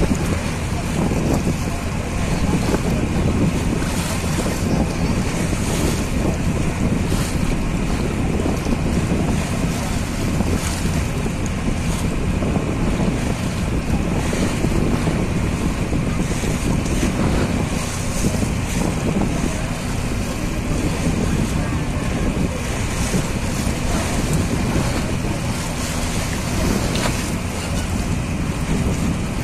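Steady drone of a boat's engine under wind buffeting the microphone, with choppy river water washing past.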